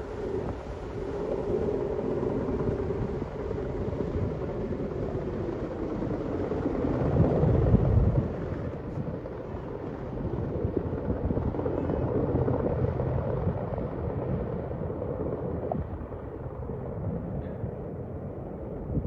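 Helicopter flying away in the distance: a steady rotor and turbine drone that grows duller as its higher sounds fade. Wind buffets the microphone in rough low gusts, loudest about eight seconds in.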